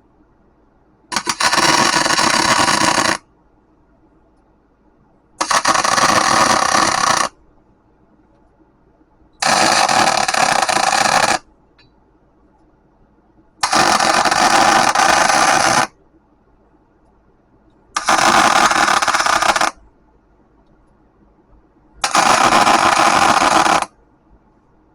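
Electric arc welder crackling in six short welds of about two seconds each, roughly every four seconds, as short beads are laid on a forklift rim.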